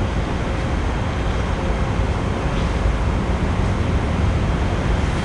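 Steady rushing background noise, heaviest in the low end, with no distinct events.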